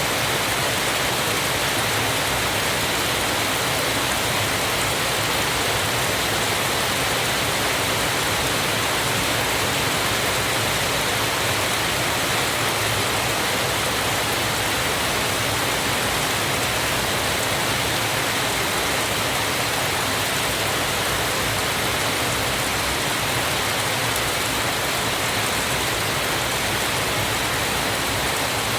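Waterfall: water falling steadily in an even, unchanging rush with no breaks.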